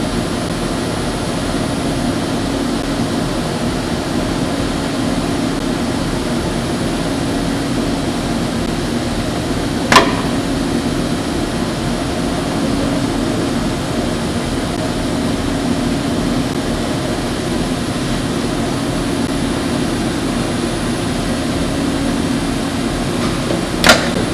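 Steady hum of the Puma 760 robot assembly cell, broken twice by a sharp knock, about ten seconds in and again near the end.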